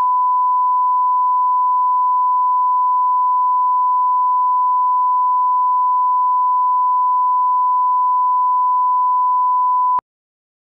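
Broadcast line-up test tone played with colour bars: one steady, pure, unchanging beep at a single pitch that cuts off sharply near the end.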